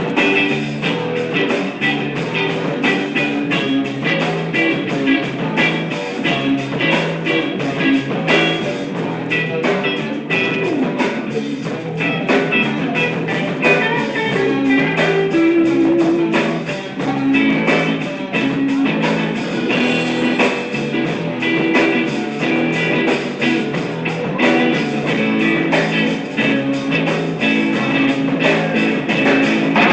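Guitar played in a fast, steady strummed rhythm.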